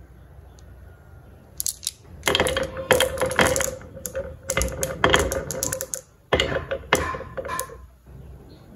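A handful of marbles rolling down a carved wooden wave-groove track, clicking and clattering against the wood and each other as they pile up against a wooden block. A dense run of clicks and rattles over a steady rolling hum starts about two seconds in, breaks off briefly, comes back in a second shorter clatter, then stops as the marbles settle.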